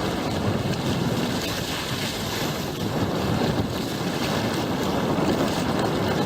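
Strong wind buffeting the microphone over the steady rush and splash of water along the hull of a small sailing outrigger under way.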